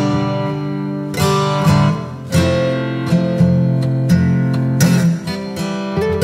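Music: strummed acoustic guitar with steady chords.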